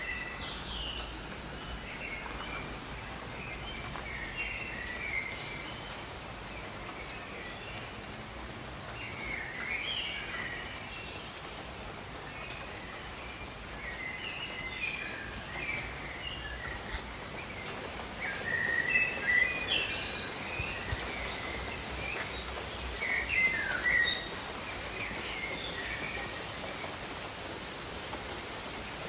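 Steady rain hiss with birds singing short chirping phrases over it, the birdsong growing busier in the second half.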